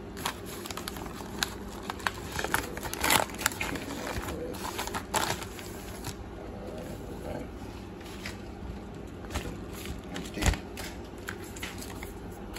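Padded mailers being handled: the torn yellow paper envelope and a black plastic bubble mailer rustling and crinkling as one is pulled out of the other, with scattered clicks and a soft knock near the end.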